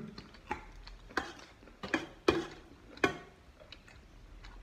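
Close-up eating noises: about five sharp, irregularly spaced clicks and crunches from chewing and cutlery at the table.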